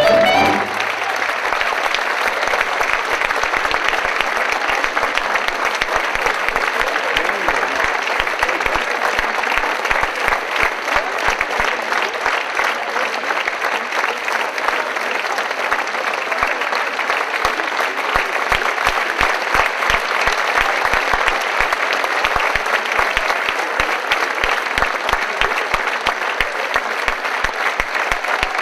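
Concert audience applauding steadily, with a dense wash of clapping. The folk band's last note cuts off just as it begins, and sharper individual claps come through more in the second half.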